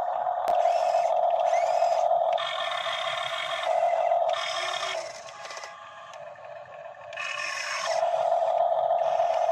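Radio-controlled model excavators working in mud, with a steady high motor whine. The whine gives way three times to harsher, noisier stretches as the arm moves, and goes quieter for a couple of seconds just past the middle.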